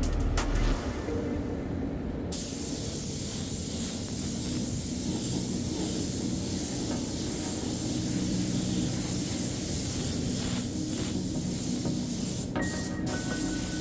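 Spray gun hissing steadily as primer is sprayed onto the car's bare metal body, starting about two seconds in.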